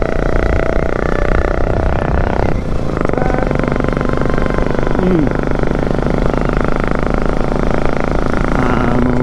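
Bajaj Pulsar NS200's single-cylinder engine running under load on an uphill climb, with wind on the microphone. The engine note breaks off briefly about two and a half seconds in, then picks up again.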